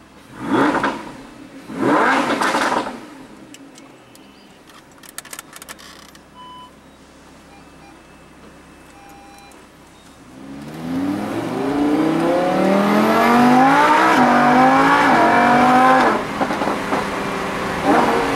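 Lamborghini Huracán's V10 engine heard from inside the cabin: two sharp revs near the start, a quiet idle, then from about ten seconds in a hard acceleration. The pitch climbs and dips with quick upshifts, then falls off about sixteen seconds in as the throttle eases.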